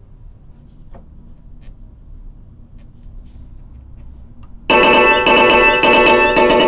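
A Shura no Toki pachislot machine's speaker: a faint hum with a few soft clicks, then about two-thirds of the way in a loud electronic chiming jingle starts abruptly and keeps going.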